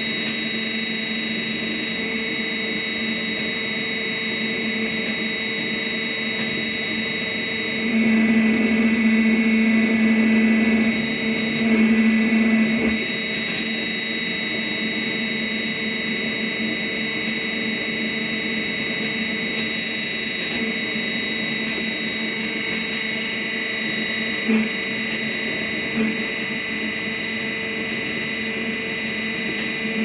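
Hydraulic test rig with a 12V proportional valve running: a steady electric hum with a high whine, swelling for about three seconds about a third of the way in and again briefly just after, as the valve is worked.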